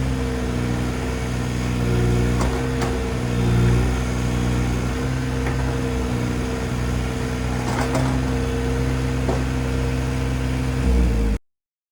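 Komatsu PC26MR-3 mini excavator's three-cylinder diesel engine running at a steady speed, with a few light clicks. The sound cuts off abruptly near the end.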